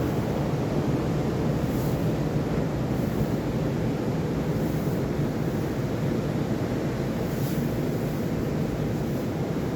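Steady rumble of wind on the microphone over the sea, with faint washes of surf about two seconds in and again near the end.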